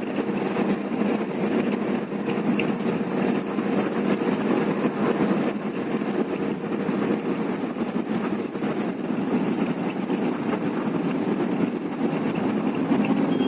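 A bus engine running steadily, with a constant low hum that holds even throughout.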